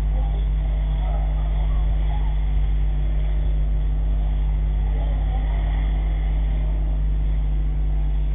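Steady low engine drone, running evenly with no change in pitch or level.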